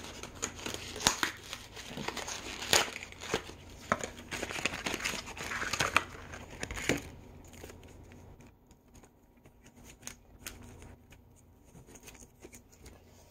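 Toy packaging being handled and torn open: crinkling and tearing with sharp clicks for about seven seconds, then only a few faint rustles and clicks.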